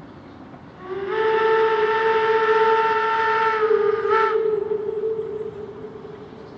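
Steam locomotive whistle blown in one long blast of about four seconds, sliding up slightly in pitch as it opens. A brief flare comes near the end before the lowest note trails away.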